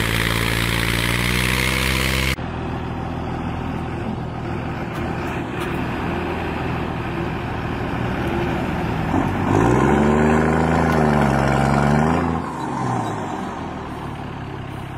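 An old farm tractor's diesel engine runs under load, cut off abruptly about two seconds in. Heavy log truck diesel engines follow, with one engine note dipping, rising and falling for about three seconds near the middle as a truck revs, then settling back to a lower, steadier running sound.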